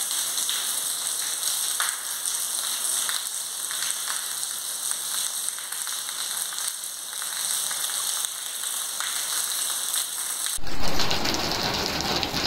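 Steady rain falling on a paved street, an even hiss. About two seconds before the end it gives way to a louder, fuller rush of heavy rain with a low rumble under it.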